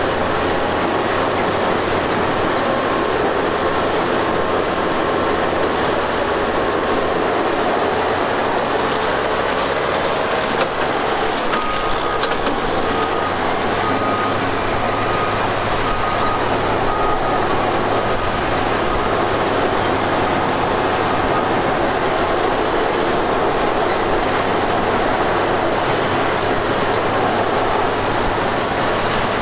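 Tracked earthmoving machinery working: diesel engines running steadily, their low note shifting several times, along with the noise of steel crawler tracks. A faint, broken high beeping runs through the middle.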